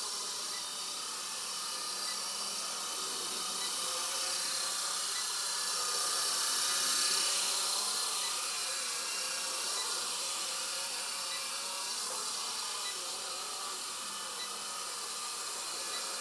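Blade SR 120 micro RC helicopter hovering, its small electric motors giving a steady high whine that swells a little about seven seconds in as it moves closer.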